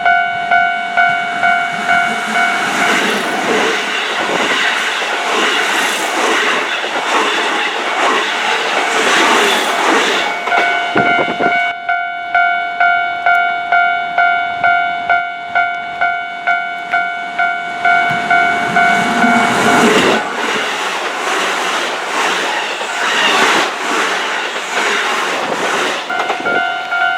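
Japanese railway level-crossing warning bell dinging steadily about twice a second. Keihan electric trains pass over the crossing with a rush of wheel and rail noise, the first from about three to ten seconds in, the second from about twenty seconds in.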